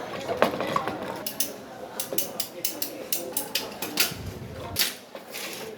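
Small metal tools and hardware being handled: a quick, irregular run of sharp clicks and clinks, with voices murmuring underneath.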